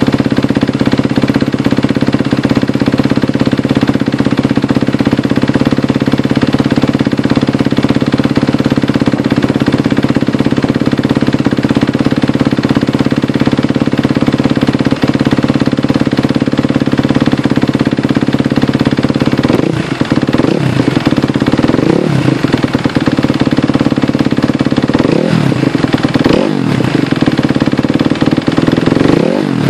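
2012 Kawasaki KX250F's single-cylinder four-stroke engine idling steadily while warming up after a cold start, then revved in about five short throttle blips in the last ten seconds, each rising and falling back to idle.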